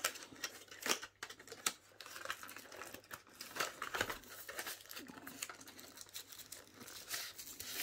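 Cardboard box and paper packing being handled and pulled apart: irregular rustling, crinkling and scraping with scattered small clicks.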